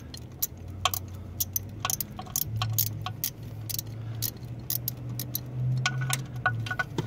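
Irregular metallic clicks and ticks from a hand tool being twisted by its knurled thumb screw to work a speed sensor shaft loose, with a low steady hum underneath.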